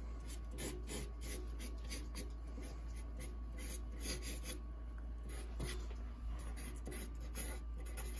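Sharpie marker sketching on a large sheet of drawing paper: a run of short, irregular pen strokes scratching across the paper.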